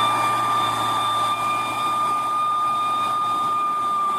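Isuzu Elf dump truck's engine running steadily under load while the truck sits bogged in mud under a full load of soil, with a steady high whine over the engine noise.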